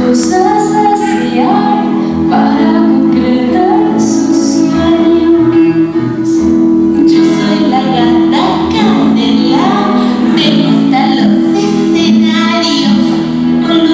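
A woman singing a children's theatre song over instrumental accompaniment.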